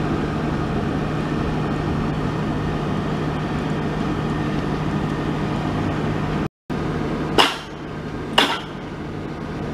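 Steady mechanical drone with a constant low hum, broken off briefly, then two sharp metallic clanks about a second apart from a crawler drilling rig's steel rods and mast.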